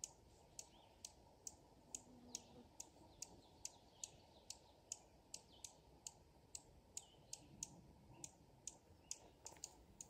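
Dark-eyed junco giving sharp chipping calls, about two to three a second in an even series: its alarm signal, given near its nest.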